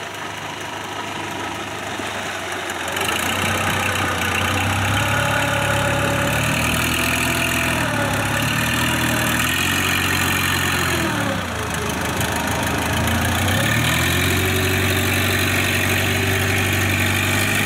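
Kubota combine harvester's diesel engine running, getting louder about three seconds in. Its pitch wavers and sags around the middle, dips briefly, then climbs again and holds steady.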